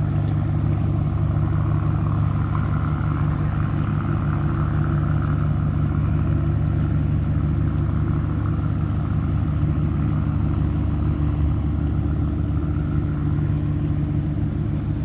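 Tugboat's diesel engine running steadily, a low, even drone.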